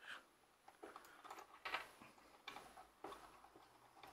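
Faint handling noise: about five small clicks and scrapes as fingers work a capacitor's wire leads into the binding posts of a uCurrent Gold current adapter.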